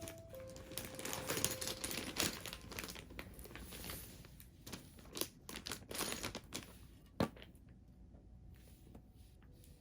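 Packaging being handled: irregular crinkling and rustling with small crackles, thinning out in the second half.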